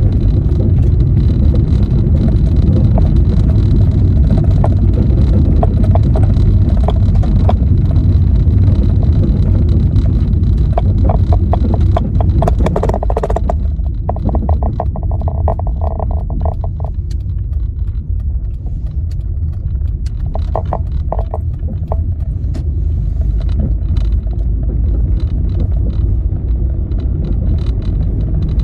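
A car on the move: steady low road and engine rumble, easing a little about halfway through, with a short run of clicks or rattles just before it eases.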